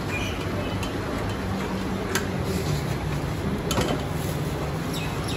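A steady low engine hum, with two sharp metal clinks of a steel ladle against steel pots and serving bowls, one about two seconds in and one nearly four seconds in.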